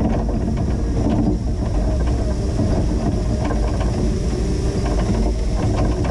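Linde H20 EVO forklift's engine running steadily while the truck plows snow, with scattered short knocks and rattles over it.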